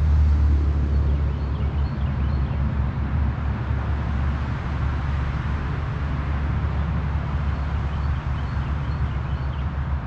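Road traffic passing close by: a steady low rumble with tyre and engine noise that swells and then fades.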